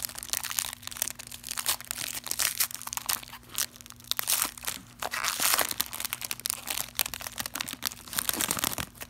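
Wrapper of a sealed baseball card pack being torn open and crinkled by hand: a dense run of crackles, with louder rustling about four to six seconds in.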